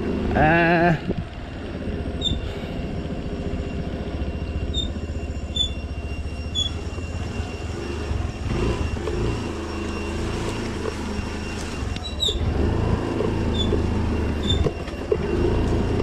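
Motorcycle engine running at low revs under steady road rumble on a rough, broken road. A brief wavering tone comes about half a second in, and short high squeaks come now and then.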